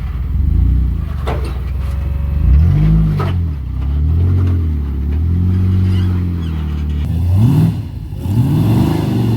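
Jeep engine revving up and down repeatedly under throttle, with two sharp knocks in the first few seconds.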